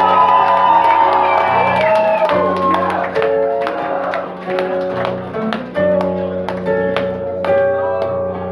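Live band music led by guitar, with picked notes ringing out over a steady held bass note, and crowd voices in the first couple of seconds.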